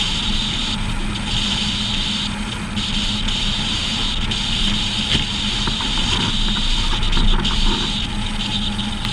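Steady road and wind noise of a trailer being towed at road speed behind a pickup, heard from the trailer's front, with a constant low hum under it.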